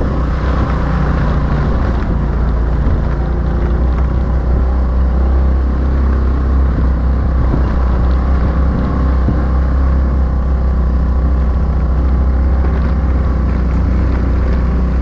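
Single-cylinder engine of a Honda Activa scooter running steadily under load as it climbs a steep dirt track, with a strong low rumble throughout.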